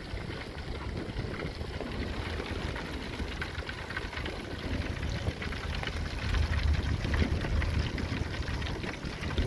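Whole white bass deep-frying in oil in a foil pan, a steady sizzle with fine crackling. Wind rumbles on the microphone, heaviest near the end.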